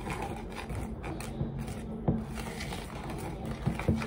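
Utensil stirring and scraping brownie batter in a plastic mixing bowl, with a few sharper knocks against the bowl about two seconds in and near the end.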